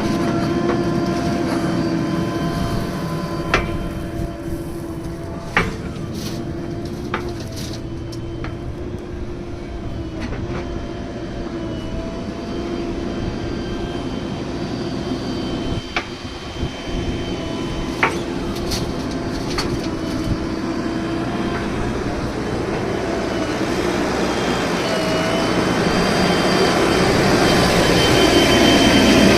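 JCB 3DX backhoe loader's diesel engine running steadily under work, with a few sharp clanks. It grows louder as it revs up near the end.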